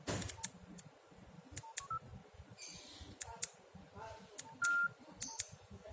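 Keys of a Nokia X2-01 QWERTY phone being pressed: sharp clicks, each with a short keypad beep at varying pitch. One longer, louder beep comes near the end.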